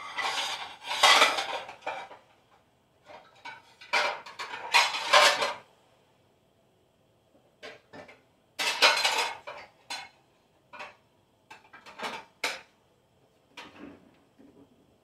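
Dishes and metal cutlery clattering in several bursts, with lighter clinks and knocks between.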